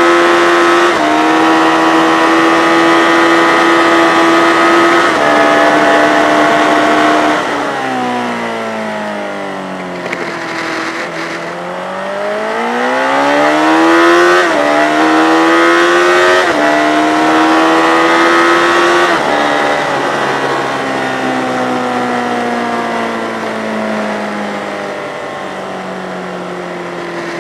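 Yamaha FZ600 racing motorcycle's inline-four engine at high revs, held hard and upshifted in steps; about eight seconds in the note drops away as the bike slows and downshifts, then climbs again under acceleration with two or three more upshifts, before falling slowly over the last seconds as the throttle is eased off.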